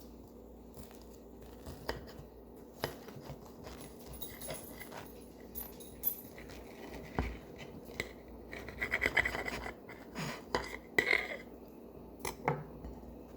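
Scattered clicks, taps and scratchy rustling of a grilled cheese sandwich and its plate being handled, with a cluster of louder scratchy bursts in the second half.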